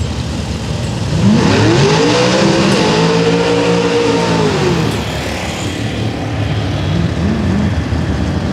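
A supercharged drag car's engine revving hard in a burnout. About a second in, the pitch climbs and is held high for a few seconds with tire-spin noise. About five seconds in, it drops back to a low idle with a couple of small blips.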